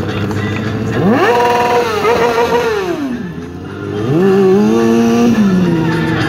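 Sport motorcycle engine revving during a stunt ride. The revs climb steeply about a second in and hold, fall away just before the middle, then rise again and hold high for over a second as the bike lifts into a wheelie, dropping off near the end.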